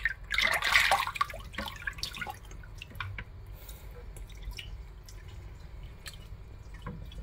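Water sloshing and splashing in a plastic basin as a hand pushes a phone under and moves it around. The splashing is loudest in the first second or so, then settles into small splashes and drips.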